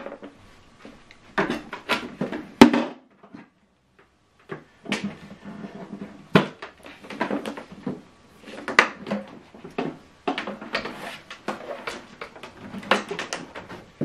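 Irregular knocks, clicks and rustles of an HDMI cable and a flat-screen TV being handled as the cable is routed behind the set, with one sharp click about two and a half seconds in.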